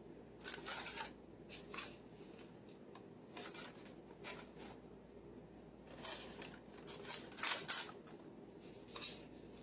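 Intermittent crinkling and rustling of a packaged food bag being handled, likely the chocolate chip bag, in short irregular bursts that are busiest near the end.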